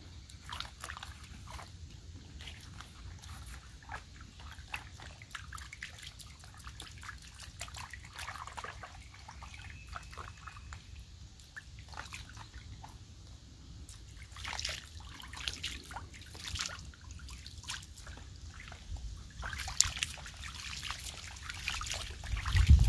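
Puddle water splashing and sloshing as a radio-controlled truck is dunked and swished in it by hand, with water dripping and trickling off its wheels. The splashes come irregularly and grow louder in the second half.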